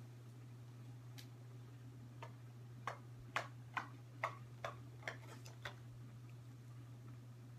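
A quick, uneven run of about eight light clicks over a steady low electrical hum.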